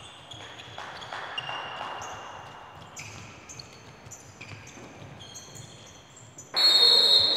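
Sports shoes squeaking on a wooden indoor court: short high squeaks, several overlapping, over a low murmur of the hall. Near the end a sudden much louder sound cuts in with a shrill high tone.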